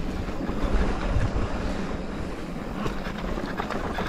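Wind buffeting the camera's microphone as a mountain bike rolls fast along a dirt singletrack, with the rumble of the tyres and scattered clicks and rattles from the bike over the rough ground, more of them near the end.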